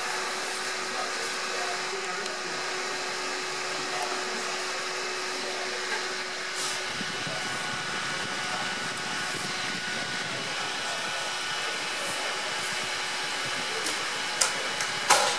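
Steady, even fan-like whooshing noise, with a faint steady hum that stops about seven seconds in. A couple of sharp clicks near the end.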